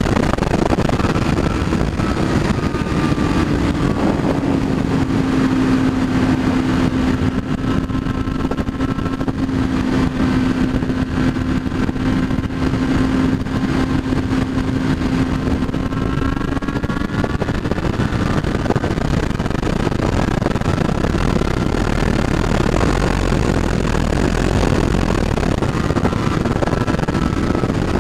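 Honda Hornet inline-four motorcycle running at steady high speed on the highway, heard under heavy wind rush on the handlebar-mounted microphone. A steady engine note stands out for much of the middle, settling slightly lower after a few seconds.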